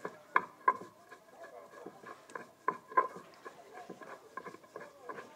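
Seeds being crushed on a flat grinding stone with a hand-held stone: scraping and rubbing of stone on stone, broken by a few sharp, loud knocks.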